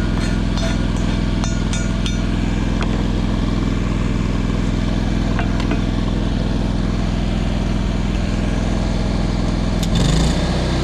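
Engine of an engine-driven welding machine running steadily. A few light ticks come early, and near the end its note shifts and briefly gets louder, as the engine changes speed.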